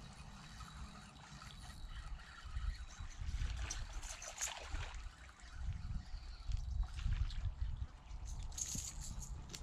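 A hooked bass splashing and thrashing at the water's surface as it is reeled in to the shore, loudest about four seconds in and again near the end. A low, gusty rumble runs underneath.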